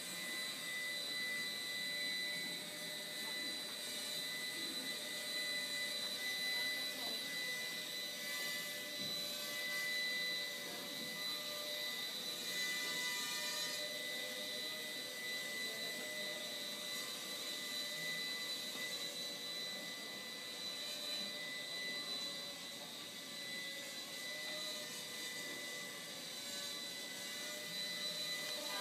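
Walkera Ladybird V2 micro quadcopter in flight: its small motors and propellers give a steady high whine and whir, with the pitch shifting a little.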